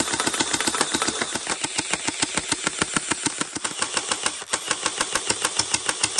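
Electric gel ball blaster firing on full automatic: a rapid, even run of shots, about nine a second, with a brief break about four and a half seconds in.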